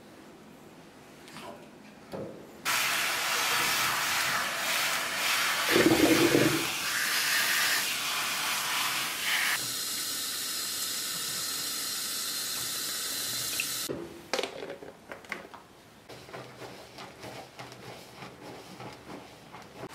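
Shower water from a grooming tub's hand sprayer running over a small dog's head and fur, a steady hiss starting about 3 s in and cutting off suddenly about 14 s in. Then quieter, irregular splashing as foamy bath water is poured from a jug into the tub.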